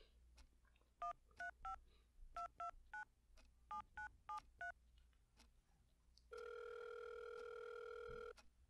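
Touch-tone keypad beeps as a ten-digit phone number is dialled on a mobile phone, in groups of three, three and four. About a second and a half later, one ringback tone of about two seconds as the call rings through.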